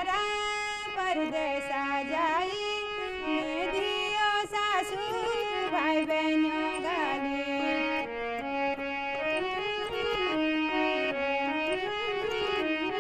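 Harmonium playing a folk-song melody in held, stepwise notes with a reedy tone.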